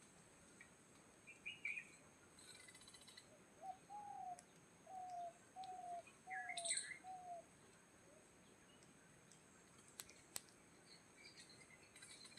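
Faint bird calls: a run of about seven short, slightly falling low notes in the middle, with a few higher chirps around them.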